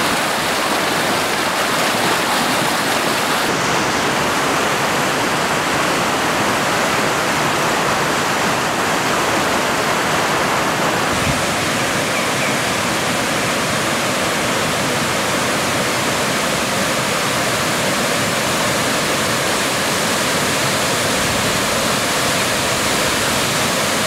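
Steady rush of stream water spilling over the low rock ledges of a tiered cascade waterfall, a full, even sound of falling and churning water. Its tone shifts slightly about eleven seconds in.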